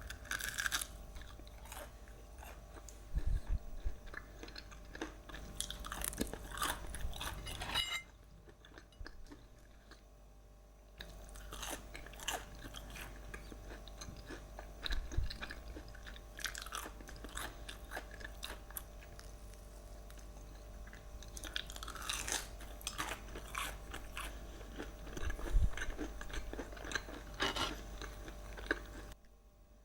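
Close-miked eating: bites and crunchy chewing of food, heard as a run of crisp crackles, with a quieter pause about a quarter of the way through.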